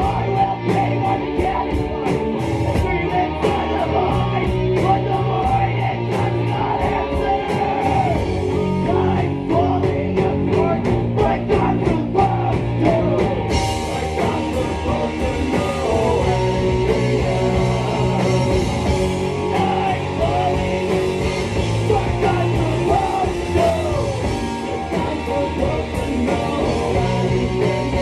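Rock band playing live: electric guitars and drums with a man singing. Evenly spaced cymbal strokes in the first half change to a steady cymbal wash from about halfway through.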